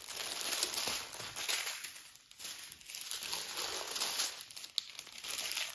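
Small plastic packets of diamond-painting drills crinkling and rustling as they are picked up and shuffled by hand, coming and going in irregular handfuls.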